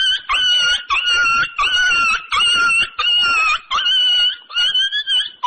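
Chicken-like squawking comedy sound effect: a rapid run of about eight high, squeaky calls, each about half a second long.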